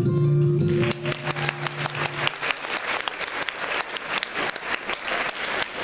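Music ends about a second in, its last low note holding on briefly, and an audience breaks into applause that continues.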